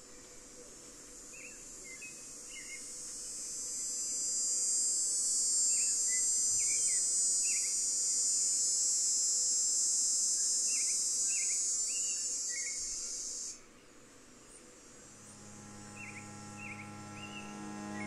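A cicada buzzing in one long high-pitched drone that swells over a few seconds and then cuts off suddenly about three-quarters of the way through, with short bird chirps now and then. Near the end a low synthesizer drone of steady tones comes in.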